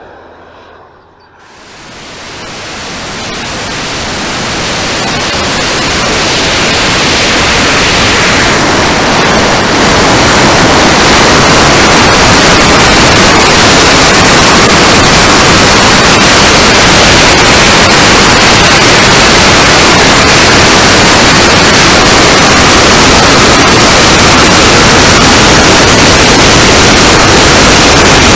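Loud, steady rushing noise from a camera riding on a turbine-powered RC jet in flight: air streaming over the microphone mixed with the jet turbine. It builds up over the first few seconds and then holds even. Just before it, a faint sound fades away.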